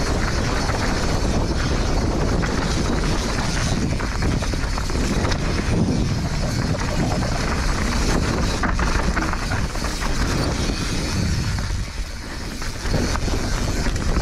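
Steady wind rush over the microphone mixed with a rough, continuous rattle and rumble of a mountain bike descending a steep, rutted dirt trail.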